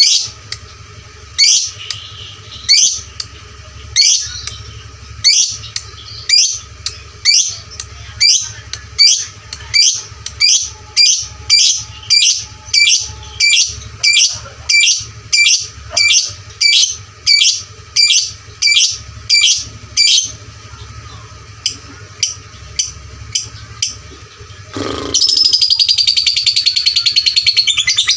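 Lovebird calling: loud, sharp, high chirps repeated one at a time, about one to two a second and quickening, fading to fainter chirps after about twenty seconds; near the end it breaks into a loud, continuous, rapid chattering trill, the 'ngekek' that follows the ticking calls.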